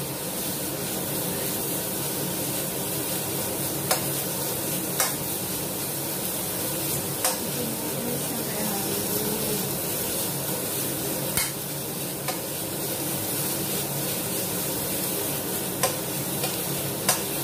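Sliced onions sizzling as they are stir-fried in a metal wok, with a metal ladle stirring and scraping through them and clacking sharply against the pan a handful of times.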